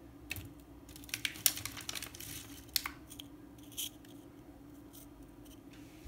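Butter cookies being handled in a thin clear plastic tray: a quick run of sharp crackles and clicks over the first three seconds, then one short rustle.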